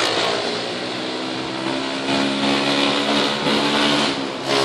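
A small boat's engine running steadily, a hum of several pitches that shifts slightly, over a loud rushing hiss.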